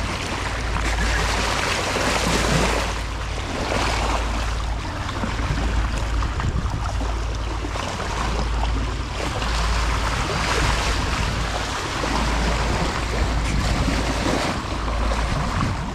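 Water washing along a sailboat's bow as it motors through a calm sea, with wind rumbling on the microphone. The sound swells and eases every two to three seconds.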